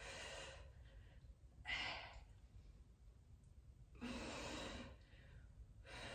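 A woman breathing hard from exertion while working out with a dumbbell: four strong breaths out, spaced about two seconds apart, the third the longest.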